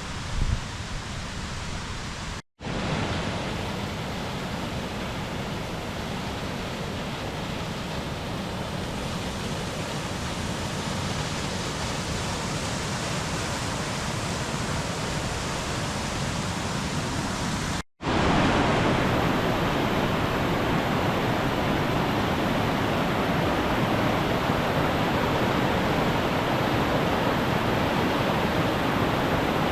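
Steady rush of a mountain stream with no other sound on top, cut off twice for an instant, about two and a half seconds in and about eighteen seconds in, and louder after the second break. A brief thump just after the start.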